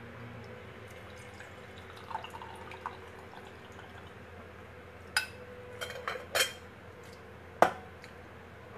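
Green tea poured from a glass jar through a small metal strainer into a mug, a faint liquid trickle. From about five seconds in come several clinks and knocks of glass and metal, the loudest near the end as the jar or strainer is set down.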